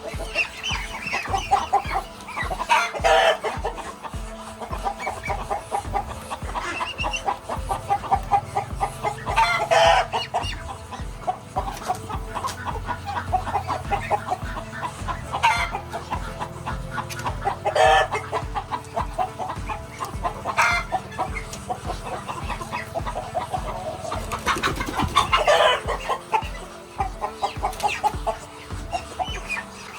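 Poultry calling in repeated bursts, several louder calls standing out, over background music with a steady beat.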